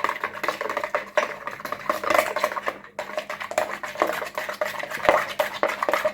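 Eggs and cooking oil being whisked in a bowl: rapid clicking of the utensil against the bowl, with a brief pause about three seconds in.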